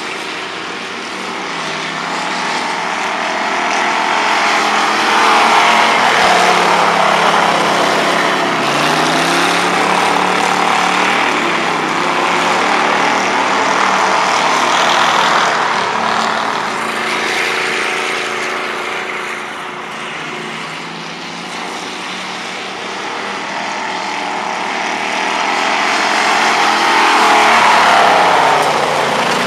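Dirt-track race car engines running at speed around the oval, the engine note rising and falling and swelling as cars pass close, about a few seconds in, again around halfway, and loudest near the end.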